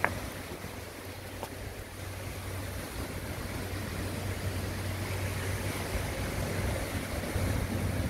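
Seaside wind buffeting the microphone over the wash of surf, with a steady low rumble underneath that builds slowly. A single sharp click right at the start.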